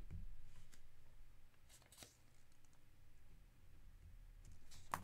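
Faint scratching of a pen writing on a paper note, with a few light clicks, over a steady low hum.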